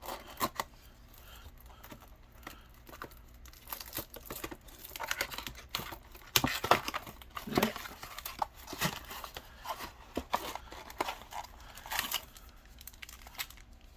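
Yu-Gi-Oh booster packs in foil wrappers crinkling and rustling as they are pulled out of a mini box and handled, in irregular crackles that grow busier after a few seconds.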